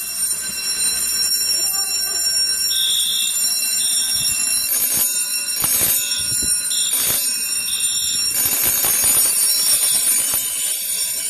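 A collection of vintage fire alarm devices sounding all at once: electronic horns and ringing alarm bells, with a smoke alarm beeping on and off over them, making a loud, layered, high-pitched din.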